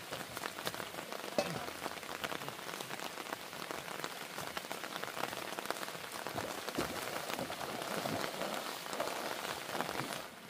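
Steady rain falling, with many small drop hits close by. The sound drops to a quieter level just before the end.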